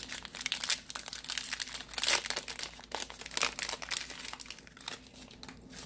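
Thin clear plastic wrapping crinkling irregularly as it is handled and pulled open around a nail-art stamper, loudest about two seconds in.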